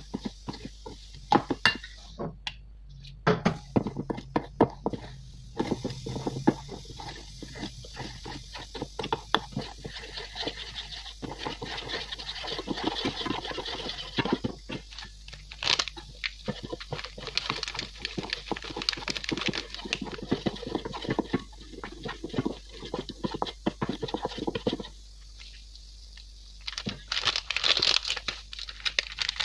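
Metal spoon stirring a flour-and-water batter in a stainless steel bowl, clinking and scraping against the sides in quick, irregular strokes. Near the end a plastic packet of flour crinkles as it is handled.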